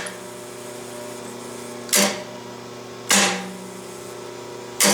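Three-phase magnetic motor starter clacking loudly as its contactor pulls in and drops out, three times, with a brief buzz while it is held in, over the steady hum of a running rotary phase converter.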